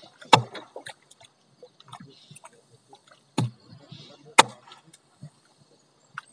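Water sloshing and splashing with small scattered clicks, broken by three sharp knocks: one just after the start, then two more a second apart in the middle.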